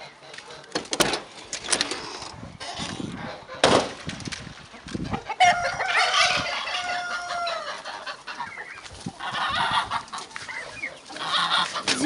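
Flock of chickens and turkeys clucking and calling, with a rooster crowing in one long, slightly falling call from about five and a half seconds in. A few sharp knocks come in the first four seconds.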